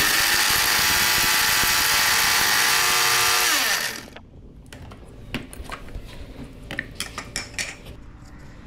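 Electric mixer grinder grinding whole dry spices in its jar: a loud, steady motor whine for about four seconds that falls in pitch and winds down as it is switched off. After it stops come a few light clicks and knocks.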